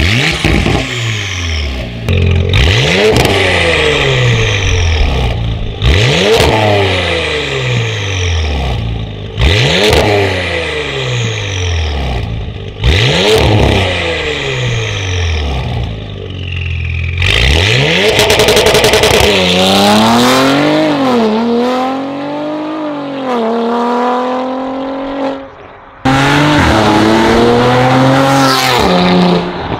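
Porsche 971 Panamera 4S 2.9-litre twin-turbo V6 through a catless Fi Exhaust valvetronic system with the valves open. It is blipped sharply in place about every three and a half seconds, each rev falling away. Then it accelerates hard, the pitch climbing and dropping at each upshift, and after a sudden cut near the end there is another loud full-throttle run.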